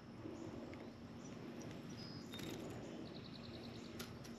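Faint outdoor ambience with a steady low hum, a few faint high chirps, and a short quick trill of high ticks a little past three seconds in.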